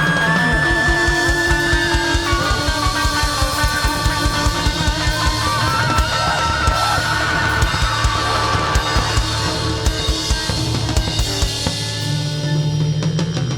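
Live rock band playing: a fast, driving drum-kit beat under electric guitars and held notes. The drums drop away about twelve seconds in, leaving a sustained low note.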